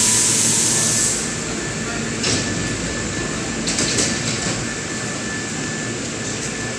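Hankyu 3300-series electric train standing at the platform after arriving. A loud air hiss fades out in the first second, then a steady hum of the train's equipment continues with short puffs of air about two and four seconds in.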